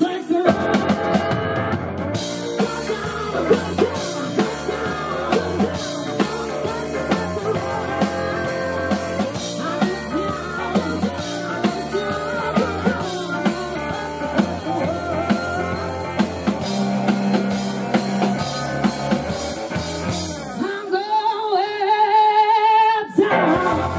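Live rock band playing: drum kit, electric guitars and bass under a singer. Near the end the drums and bass drop out, leaving a single wavering high held note, and then the full band comes back in.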